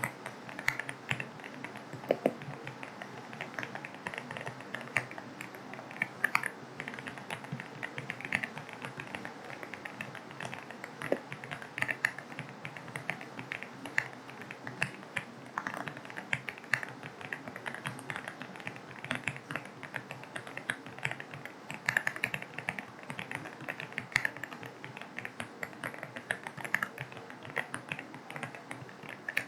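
Continuous typing on an AULA F75 mechanical keyboard with linear switches: a quick, irregular stream of key clicks, layered over a steady hiss of rain.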